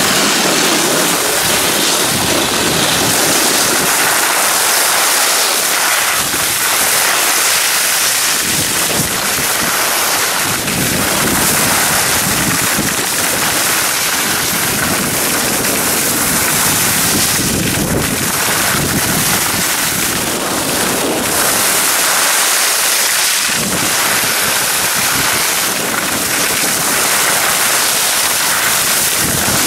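Steady rush of wind over a moving camera's microphone, mixed with snow hissing and scraping under the descending riders' edges.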